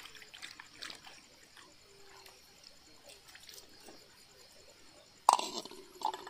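Water dripping and splashing as a small aluminium pot is tipped and shaken out. About five seconds in, the pot is set down with a loud metallic clank and ring, followed by a lighter clink.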